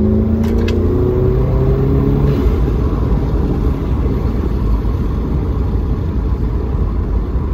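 Volkswagen Golf GTI's turbocharged 2.0-litre four-cylinder, fitted with a Neuspeed power module, aftermarket intake and turbo muffler delete, accelerating hard with its engine note rising in pitch for about two seconds. It then falls away into a steady low rumble of road noise.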